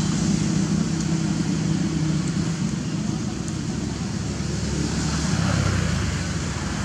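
Steady low rumble of road traffic with indistinct voices in the background.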